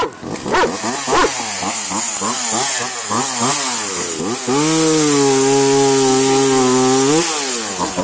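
Gas chainsaw engine revved up and down about twice a second, then held at a steady high pitch for about two and a half seconds as it cuts into a firewood log, and let off near the end. A dog barks at the very start.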